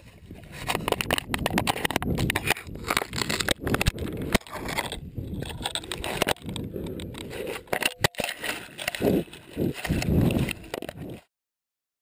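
Dense scraping, crackling and crunching right against a small camera's microphone as lions feeding on an antelope carcass beside it nose and rub against the camera. A few louder, deeper rubs come near the end, then the sound cuts off suddenly.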